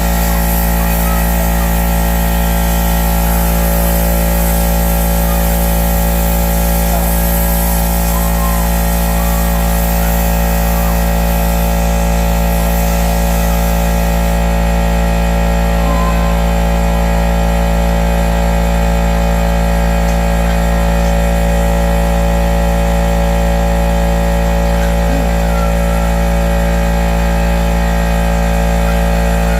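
A motor running steadily: a constant mechanical drone made of many fixed tones over a heavy low hum, with no change in speed.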